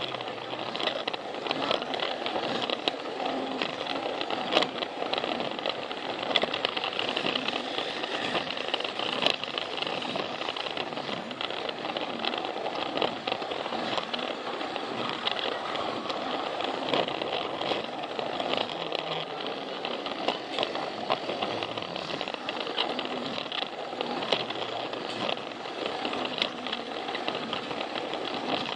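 Plarail battery-powered toy train running along plastic track: a continuous rattle with many small clicks from the wheels and track.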